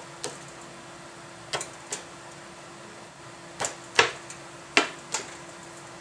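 Sharp knocks and clicks, about seven of them and the loudest about four seconds in, as a wooden end plate is worked down over a rotor shaft and thin steel shims onto a generator core. A faint steady hum runs underneath.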